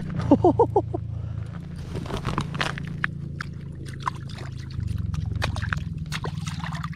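A bare hand sloshing and scooping in the slushy water of a fishing hole cut through lake ice, with small clicks and crackles of ice chips knocking about. A steady low hum runs underneath.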